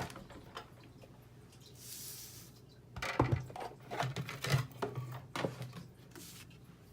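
Craft tools and paper being handled on a tabletop: a soft rustle of paper sliding about two seconds in, then a run of light knocks and clatters as hard plastic and metal pieces are picked up and set down.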